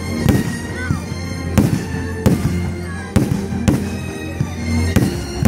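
Aerial firework shells bursting overhead: about seven sharp bangs at uneven intervals of roughly half a second to a second and a half.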